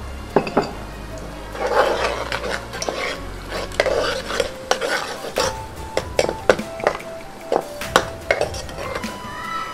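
A metal spoon stirring and scraping chopped onions in oil around a metal cooking pot, with repeated sharp clinks and knocks of the spoon against the pot.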